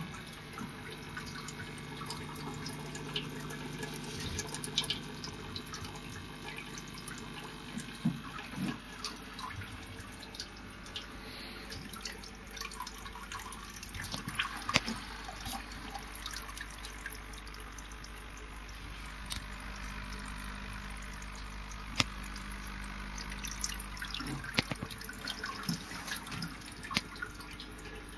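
Aquarium water trickling and dripping over a steady rush, with irregular sharp drips and pops throughout. A low steady hum sounds for the first several seconds.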